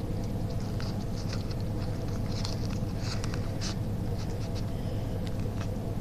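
Light rustling and crinkling with scattered small clicks as the blade is pushed into the taped sleeve of a homemade pocket knife, over a steady low hum.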